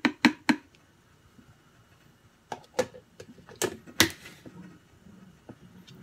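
Metal spoon tapping and knocking against the rim of a plastic blender cup as fruit is scraped off into it: a quick run of sharp clicks at the start, then another cluster about two and a half to four seconds in, the last tap the loudest.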